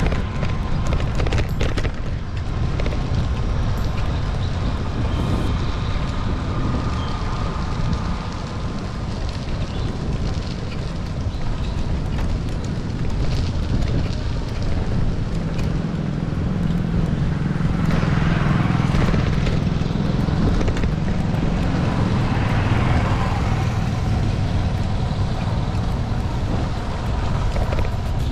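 Wind and road noise rumbling on a bicycle-mounted GoPro during a ride through motor traffic. About halfway through a louder, deeper vehicle sound swells past and fades over several seconds.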